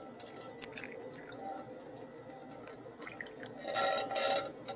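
Hot sugar syrup poured from a steel saucepan into a glass bowl of water, trickling and dripping, louder near the end.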